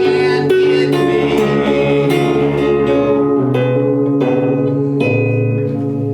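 Guitar music played live: plucked notes ringing over held lower notes, with no singing.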